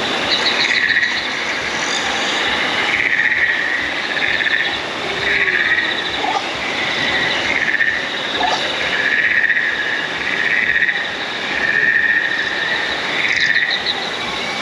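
Chirping, trilling insect-like calls repeating about every second over a steady hiss, with quick rattling trills near the start and near the end.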